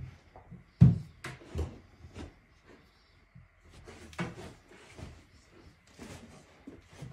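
Dog nosing and pawing under a shaggy rug to hide a rib bone: a series of dull knocks and bumps among soft scuffling, the loudest about a second in.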